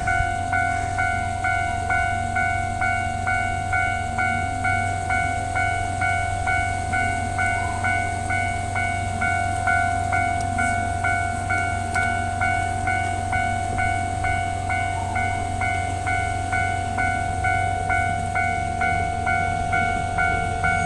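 Japanese railway level-crossing electronic warning bell, the older standard tone, ringing in an even, unbroken run of just under two dings a second.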